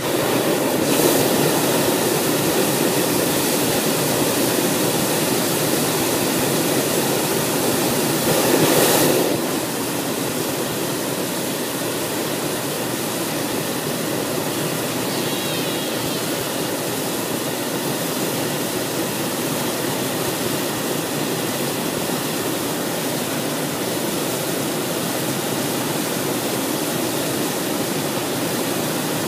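Hot air balloon's propane burner firing continuously into the envelope, a steady rushing blast of flame, a little louder for the first nine seconds or so. It is heating the air in the envelope for lift-off.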